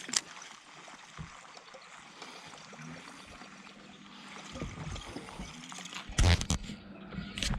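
Water gurgling and splashing, with a steady low hum coming in about halfway through and a few loud sharp knocks near the end.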